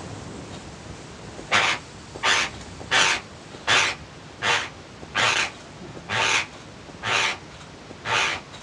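A person's teeth grinding together with bruxism: nine short grating strokes at an even rhythm, a little under a second apart, starting about a second and a half in.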